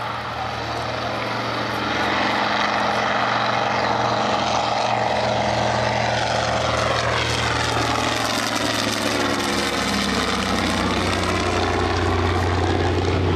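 Single-engine radial propeller airplane climbing out and passing low overhead. Its engine sound swells over the first two seconds, stays loud, and falls in pitch as the plane goes past.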